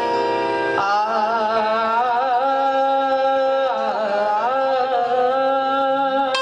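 A woman singing a long, held, wavering melodic line in a qawwali-style ghazal, with sustained harmonium notes beneath.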